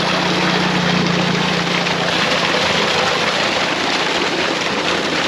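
Irrigation pump outlet pouring a strong stream of water into a concrete tank: a loud, steady rushing splash, with a low steady hum underneath that eases slightly about two seconds in.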